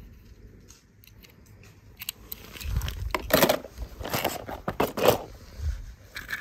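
Handling noise from small toy cars being picked up and set down on a stone surface: scattered clicks and short scraping, rustling bursts, busiest in the middle.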